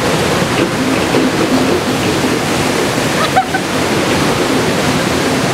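Ocean surf breaking on a rocky shoreline: a steady, loud rush of wave noise.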